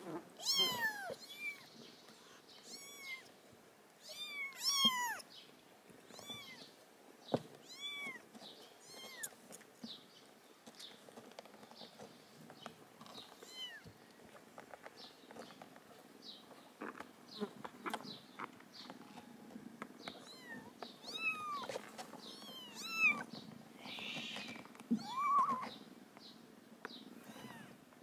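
Kittens mewing: many short, high-pitched mews, each rising then falling in pitch, repeated every second or so, with louder bunches near the start and near the end.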